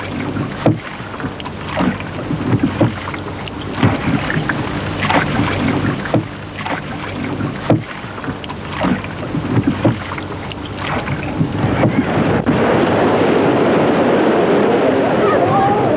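Oars and a small rowing boat in the sea: short, irregular splashes and slaps of water, several a second at times. From about twelve seconds in, a louder steady rushing of wind and waves takes over.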